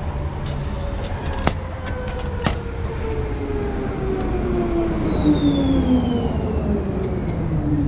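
Electric tram pulling into the stop and braking, its traction motor whine falling steadily in pitch as it slows, over a low running rumble. A few sharp clicks sound in the first three seconds.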